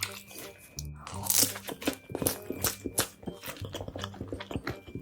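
Close-miked mukbang eating sounds: big mouthfuls of noodles being chewed, with wet smacking clicks and a loud slurp about a second in. Faint background music underneath.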